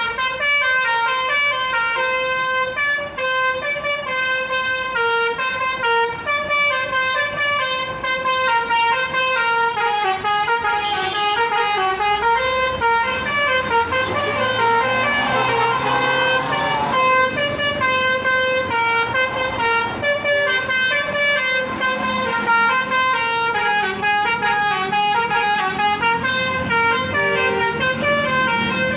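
A bus's basuri telolet horn playing a tune, its pitched tones stepping up and down every fraction of a second without a break. A low rumble rises beneath it in the middle.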